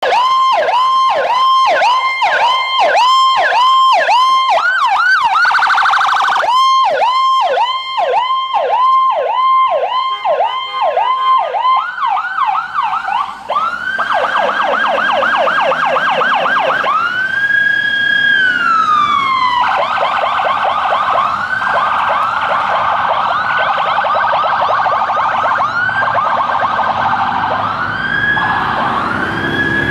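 Federal Signal PowerCall electronic siren on an ambulance sounding its hiccup tone: a quick repeating rise-and-fall about twice a second. About twelve seconds in it switches to a faster, higher yelp, slides down in one long falling note, then goes back to the fast yelp. A vehicle engine rumbles underneath in the second half.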